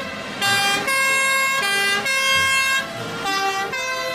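Toy fire truck's electronic siren sounding a two-tone hi-lo wail, switching back and forth between two steady pitches roughly every half second.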